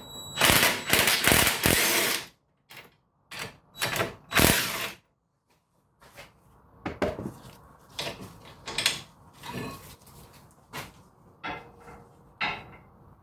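Impact wrench run in short bursts, spinning out the 18 mm brake caliper bracket bolts, loudest in about the first two seconds and then three shorter bursts; after that, scattered light knocks as the parts are handled.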